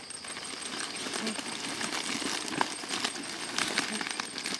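Large green leaves rustling and crinkling as they are folded into a bundle and bound with grass, a dense run of small clicks and crackles.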